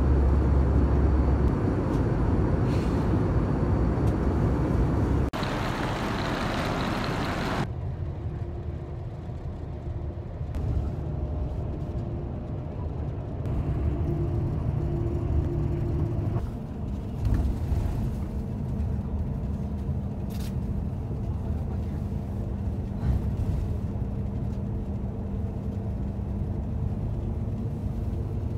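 The steady rush of an airliner cabin in flight. After a cut about 8 seconds in, it gives way to the lower, quieter rumble of a train running, heard from inside the carriage, with faint steady hum tones and occasional small knocks.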